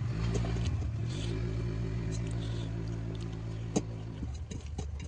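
A motor running with a steady low hum, shifting in pitch about a second in and again near the end, with scattered sharp clicks over it; the loudest click comes late on.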